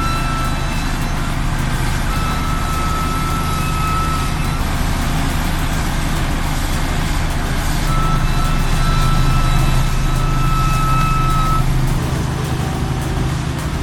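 Heavy diesel machine engine running steadily, getting a little louder about two-thirds of the way through. Long high-pitched tones sound on and off over it.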